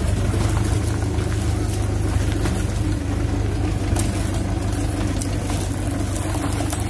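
Tractor engine running steadily with a low, even drone while towing a cart, with a few faint knocks.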